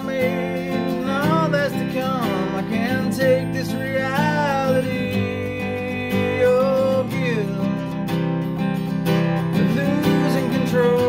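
Acoustic guitar strummed steadily in a slow country song, with a singing voice over it holding long notes that glide up and down.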